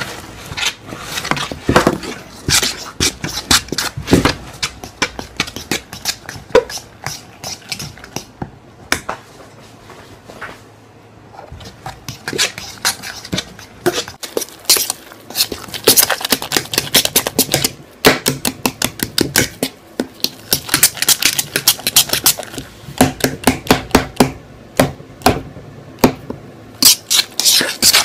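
A spoon knocking and scraping against the inside of a metal pot as pancake batter is stirred hard, in fast runs of clinks with a short lull about ten seconds in.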